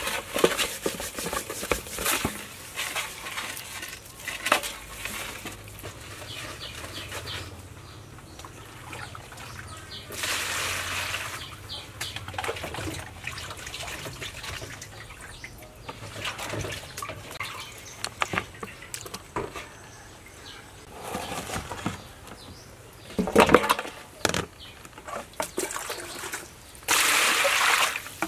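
Raw whole chickens being scrubbed with salt and rinsed in a metal basin: wet rubbing and knocks against the basin, with two spells of water pouring in, the second, the loudest, near the end.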